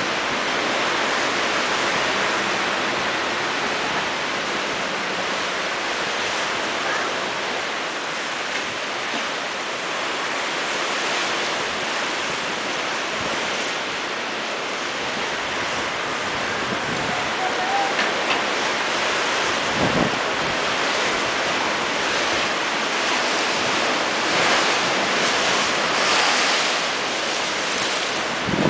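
Rough sea breaking against a stone seawall at a big spring tide: a steady rush of surf and spray, with a couple of short low thumps, one about two-thirds of the way through and one at the very end.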